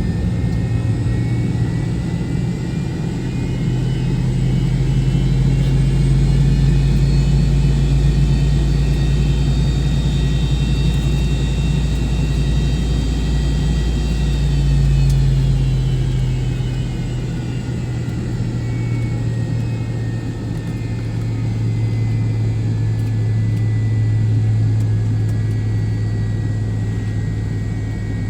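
Cabin noise of a McDonnell Douglas MD-88's rear-mounted Pratt & Whitney JT8D jet engines running: a steady low hum with a thin high whine. The whine rises a little about a third of the way in and sinks again past the middle.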